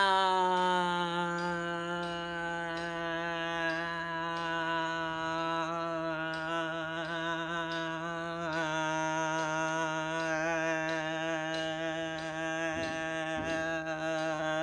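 A woman's voice holding one long sung or hummed note, steady in pitch with a slight wobble, its vowel shifting about halfway through.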